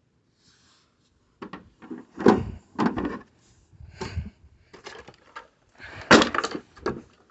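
A series of irregular knocks and thumps, like a door or objects being handled and bumped, the heaviest about two seconds in, again about three seconds in, and near the end.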